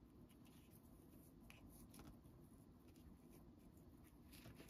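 Near silence, with a few faint soft ticks and rustles of hands working string through a paper craft piece.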